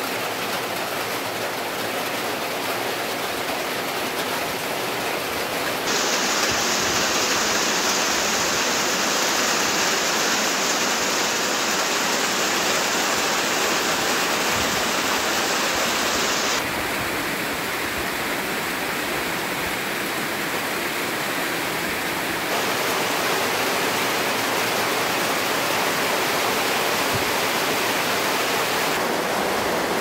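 Heavy rain falling, a steady dense hiss. It changes abruptly in brightness and loudness several times, about 6, 17, 22 and 29 seconds in.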